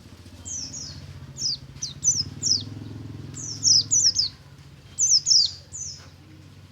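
Pleci (white-eye) songbird in full song: quick high-pitched notes that each sweep downward, coming in rapid clusters of two to four, over a steady low hum in the background.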